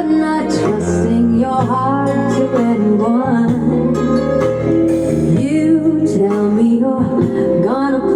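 A song with a sung melody over held bass notes, played through a 15-inch loudspeaker for a sound check.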